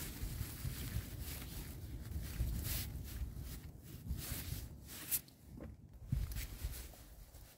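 Footsteps and rustling through forest undergrowth, with irregular crackles, while wind buffets the microphone with an uneven low rumble.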